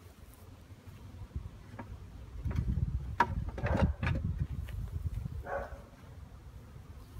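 Honeybees buzzing around an open hive, with a low rumble and a few sharp knocks for about two seconds midway as the wooden hive and nuc boxes are handled.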